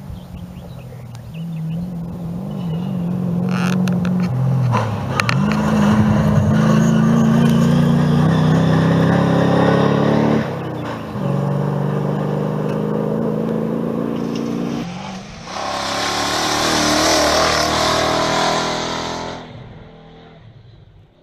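Rally vehicles racing at full throttle along a gravel stage, engines revving and climbing in pitch as they approach and pass, in a few separate passes. Near the end a loud rush of tyre and gravel noise passes and fades away.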